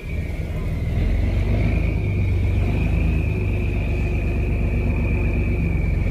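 Diesel engine of a loaded wooden river cargo boat running steadily under way: a deep rumble with a steady high whine over it.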